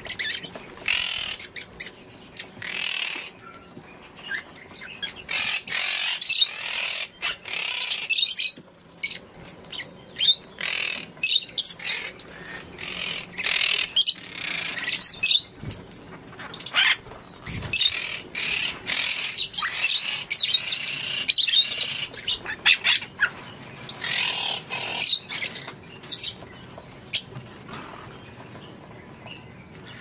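A flock of African lovebirds chirping and chattering together, many short high-pitched calls in bursts that come and go, thinning out near the end.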